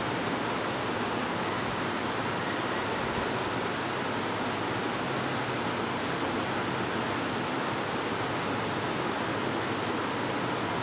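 Steady, unchanging background hiss with no other sound.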